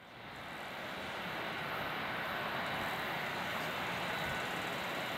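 Airbus A380-861's four Engine Alliance GP7200 turbofans running as the aircraft rolls on the ground, a steady jet rush that fades in over the first second.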